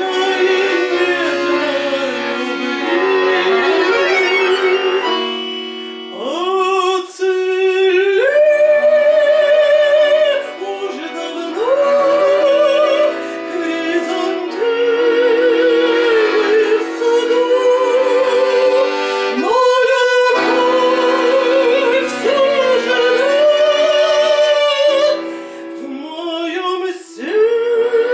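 An old Russian romance sung with instrumental accompaniment. The voice holds long notes with a wide vibrato, in phrases broken by short pauses.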